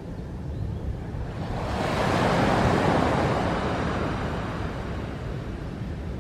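Rushing wind and water noise with a low rumble underneath, swelling to a peak about two seconds in and easing off again.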